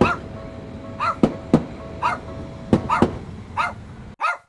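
A dog barking repeatedly, about once a second, with a few sharp knocks between the barks. The background noise cuts off suddenly near the end, leaving the last bark alone.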